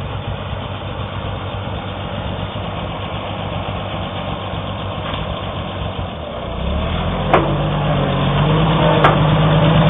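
Oliver 770 tractor engine running, getting louder and steadier about two-thirds through as it is worked harder, with two sharp clanks near the end.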